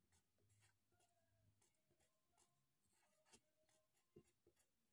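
Near silence, with faint scratching of a mechanical pencil lettering on drawing paper in short strokes.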